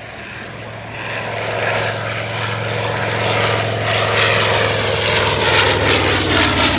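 Radial-engined World War II bomber flying past low, its propeller drone growing steadily louder as it approaches.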